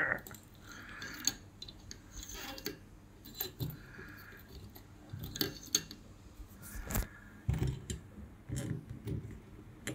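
Irregular light clicks and rattles of a fuel pump hanger's wiring connector and fittings being handled and worked by hand, with one sharper knock about seven seconds in.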